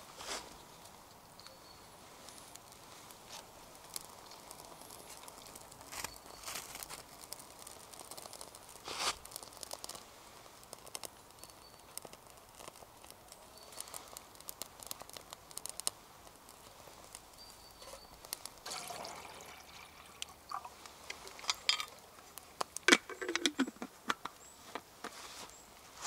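Faint, intermittent rustling and crinkling with scattered small clicks and a few short scrapes, and a denser run of sharp clicks near the end.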